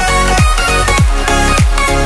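Background electronic music with a steady beat: deep bass hits falling in pitch a little under twice a second, under synth lines.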